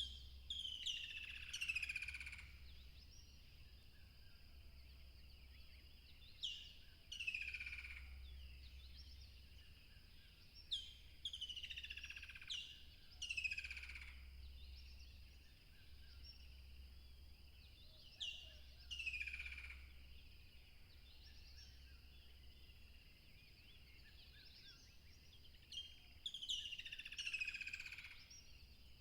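A songbird singing short phrases of quick downward-sweeping whistled notes, a phrase every four to seven seconds, over a steady high background hiss.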